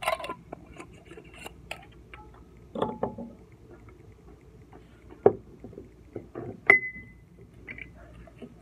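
Glass jars and their lids being handled and set down on a wooden table: scattered clinks and knocks, the two loudest about five and six and a half seconds in, the second ringing briefly.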